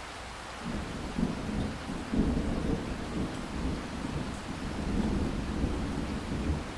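Steady rain falling, joined less than a second in by a low, uneven rumble that swells and carries on under the rain.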